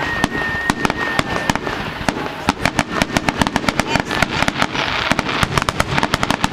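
Fireworks display: aerial shells bursting in sharp bangs. The bangs come thick and fast, several a second, from about two and a half seconds in.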